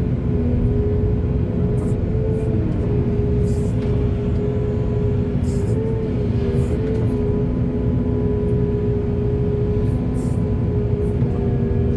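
Heavy diesel digging machine's engine running steadily under load, a low rumble with a steady whine above it.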